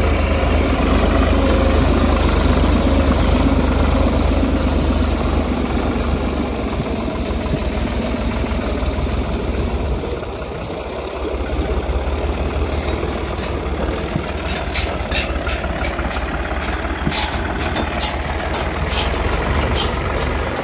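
New Holland 5500 tractor's 55-horsepower diesel engine running steadily as it tows a paddy thresher over rough field ground. A few sharp clanks and rattles come in the second half.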